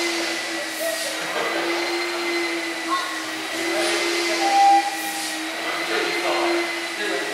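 Steam-driven electricity generating machinery running: a steady hum with a thin high whine over a hiss.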